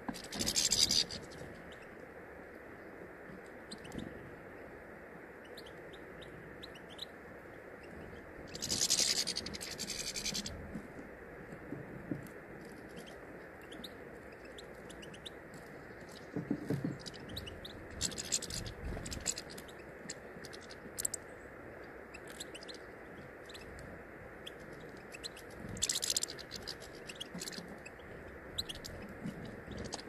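European goldfinches feeding on a tray of sunflower and mixed seed: many small clicks and scratches from seeds being picked over and cracked, with a few louder brief bursts about a second in, around nine seconds, and near the end.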